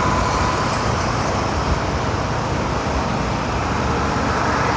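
Motorcycle on the move through traffic: a steady, dense rush of engine, road and traffic noise with no distinct events.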